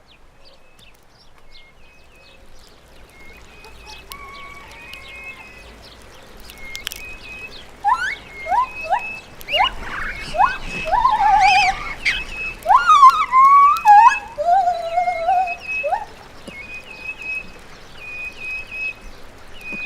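Animal calls: short high chirps repeat steadily throughout. From about 8 to 16 seconds in they are joined by louder calls that sweep upward and waver in pitch.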